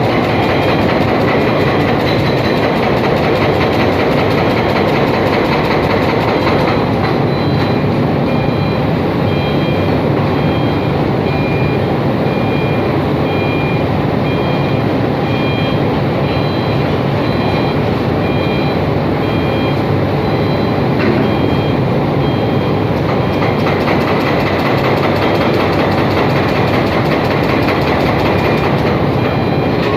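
Heavy machinery running steadily with a loud, even mechanical noise, while a high warning alarm beeps over and over, starting about a quarter of the way in.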